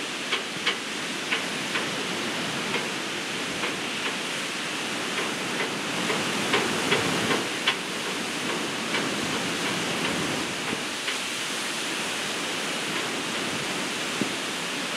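Ocean surf breaking and washing on a beach: a steady rushing noise that swells a little in the middle, with short sharp crackles scattered through it.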